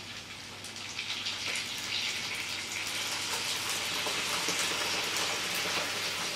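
Red wine poured into a hot frying pan of browned meatballs, hissing and crackling loudly on the hot fat as the pan is deglazed. The sizzle swells about a second or two in as more wine hits the pan.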